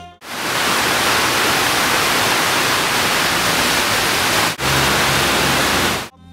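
Loud steady hiss of white-noise static that starts and stops abruptly, with a short break about four and a half seconds in.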